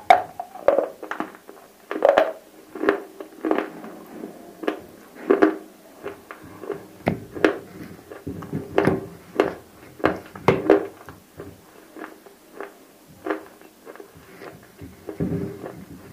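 Close, repeated crunching and chewing of dry grey clay cubes coated in roasted nakumatt clay paste. Sharp, irregular crunches come about one or two a second.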